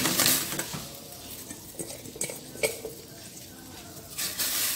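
Rice-cake dough pieces tipped from a metal bowl into a pot of boiling water, with a splash at the start and again near the end. In between, a spoon scrapes and clinks against the metal bowl a few times.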